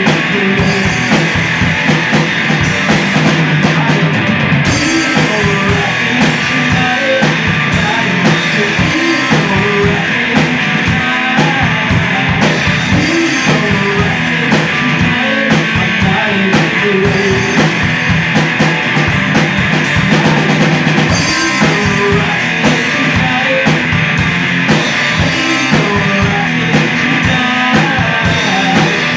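Live rock band playing an instrumental passage without singing: a drum kit keeping a steady beat under electric guitar.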